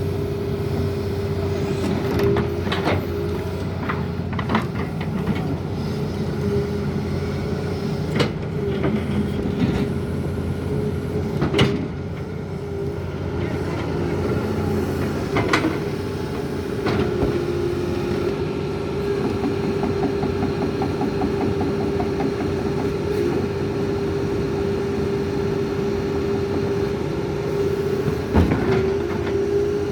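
Doosan tracked excavator's diesel engine running steadily, with scattered sharp metal clanks and knocks from the machine's steel running gear.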